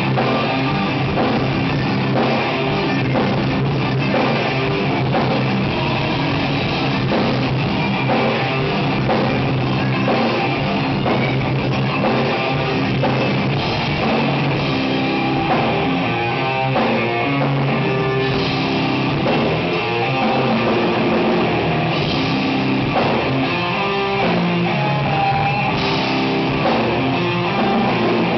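A metal band playing live at a sound check: electric guitar and drum kit, at a steady level.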